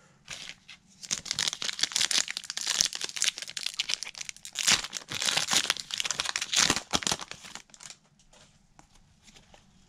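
Foil trading-card pack wrapper being torn open and crinkled in the hands, a dense crackling for several seconds that eases off near the end as the cards are pulled out.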